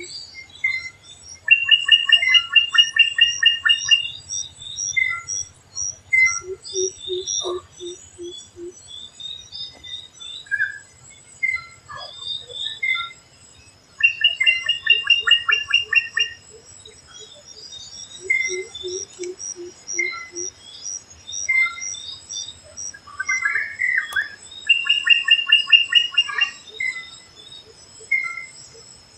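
A chorus of forest birds calling. A fast trilled phrase comes three times, a low series of five or six evenly spaced notes twice, and short high chirps are scattered throughout, over a steady high insect buzz.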